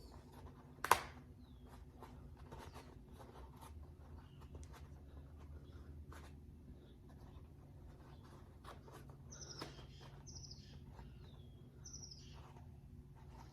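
Quiet handling of a car's shift boot and its plastic retainer: scattered light clicks and taps, with one sharp click about a second in. Several short high chirps come in the second half.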